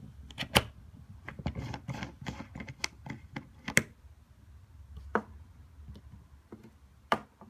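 Scattered clicks and light metallic taps from handling a vape atomizer as it is unscrewed from the box mod's top connector and set down, with a few sharper knocks among them.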